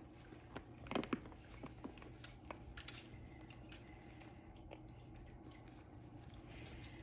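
Faint, scattered clicks and taps of a parrot's beak biting and nibbling, the loudest pair about a second in.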